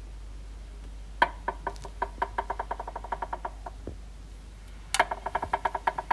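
Rope swing creaking as it swings: two creaks, each a quick run of sharp, slightly ringing ticks. The first starts about a second in and speeds up; the second starts loud about five seconds in.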